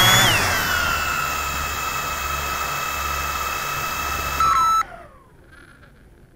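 Drone's electric motors whining, falling in pitch to a steady idle. About five seconds in they cut off and wind down.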